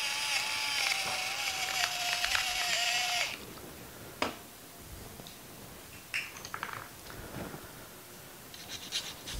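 Battery-powered pepper mill grinding pepper with a steady motor whir for about three seconds, then stopping. A single knock follows, and near the end comes the quick scratching of whole nutmeg rubbed on a fine grater.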